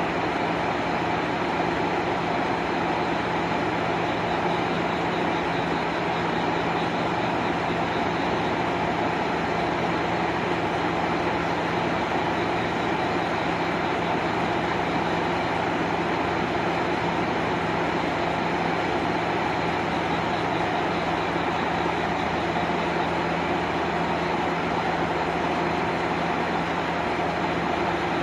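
JR Shikoku KiHa 185 diesel railcar idling at a standstill: a steady, even engine hum with no change in pitch or level.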